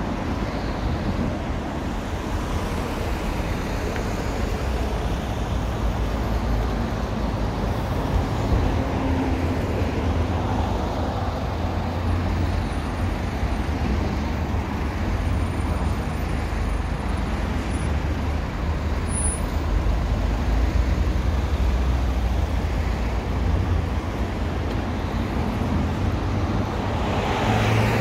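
Steady road traffic noise: a continuous rush of passing vehicles with a strong low rumble.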